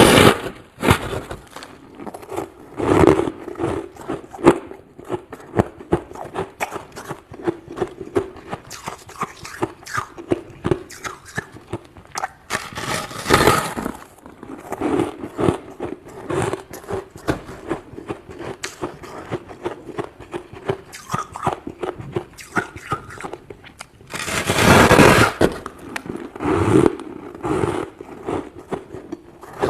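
Thick, crunchy freezer frost, built up by a humidifier, being scraped off: a steady run of small crackling cracks, with several longer, louder scrapes, the biggest about 13 and 25 seconds in.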